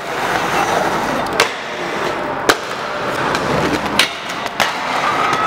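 Aggressive inline skates rolling on concrete and grinding along a metal rail, with four sharp clacks of the skates striking the rail and landing.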